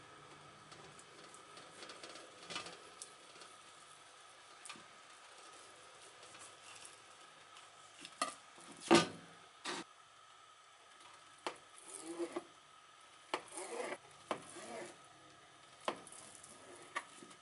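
Kitchen knife slicing through a block of kamaboko fish cake on a plastic cutting board: scattered short taps of the blade on the board, the loudest about nine seconds in and several more over the last third.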